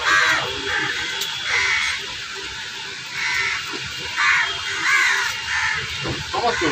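Crows cawing again and again: a string of short, harsh caws, roughly one every half second to second, with a break of about a second and a half early on.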